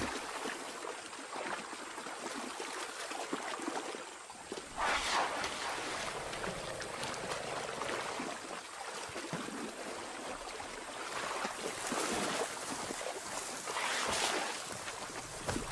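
River water running and splashing as elephants wade through it, with a few louder splashes along the way.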